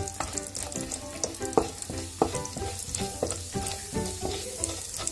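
Cumin seeds sizzling and crackling in hot melted butter in a metal pan, with irregular pops, as a wooden spoon stirs them. The seeds are spluttering in the fat, the tempering stage of the masala.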